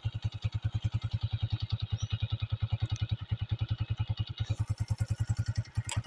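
A small engine running steadily with an even, rapid beat of about twelve pulses a second.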